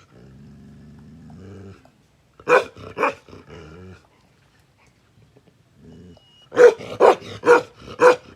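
Bakarwal dog growling low, then barking twice, growling again, and ending with four barks about half a second apart.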